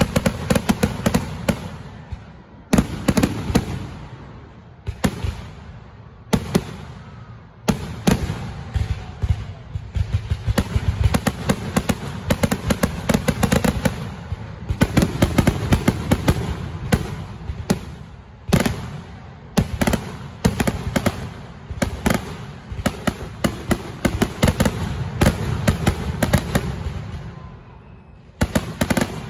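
Aerial fireworks in a finale barrage: a rapid, almost continuous series of bangs and crackle from shells being launched and bursting, with a few brief lulls.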